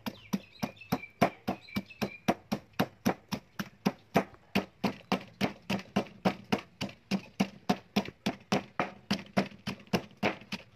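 A pestle pounding chillies and garlic in a stone mortar: a steady run of dull thuds, about four a second.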